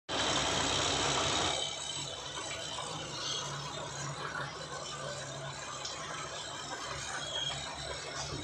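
Shantui SD22 crawler bulldozer working: the diesel engine runs steadily under the clanking and squealing of its steel tracks and running gear. A louder rushing noise covers the first second and a half.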